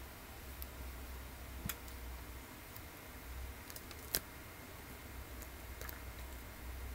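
A few faint, sharp computer mouse clicks, the loudest about four seconds in, over a low steady hum and hiss.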